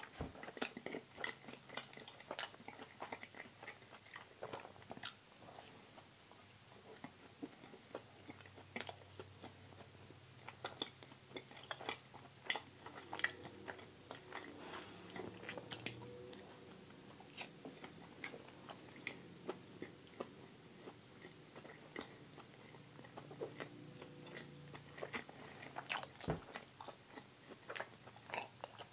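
A person chewing and biting food close to the microphone, with many small sharp mouth clicks.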